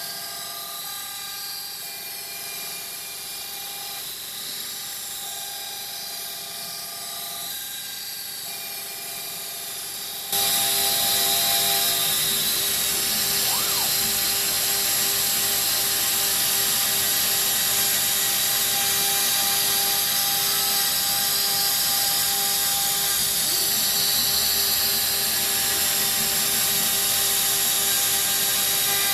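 CNC router's spindle motor running steadily as it machines an MDF part on a vacuum fixture, with the vacuum running. About ten seconds in, the sound jumps abruptly louder, with a steady rushing added, and stays there.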